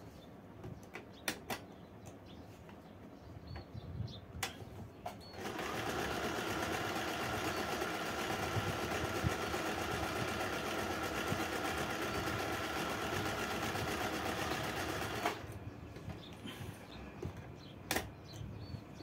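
Acme 565 lightweight free-arm domestic sewing machine with an oscillating hook, running steadily as it stitches fabric. It starts about five seconds in and stops a few seconds before the end. Scattered light clicks come before and after it.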